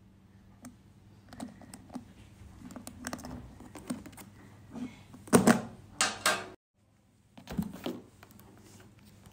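Small three-digit combination padlock: a run of light clicks as its number wheels are turned, then a few louder metallic clacks about five to six seconds in as the lock is worked open.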